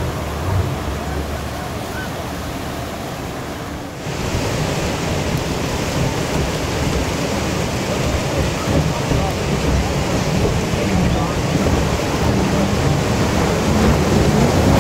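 Whitewater rapids rushing steadily, with wind buffeting the microphone. Near the end the engine of an approaching racing jet boat starts to rise over the water noise.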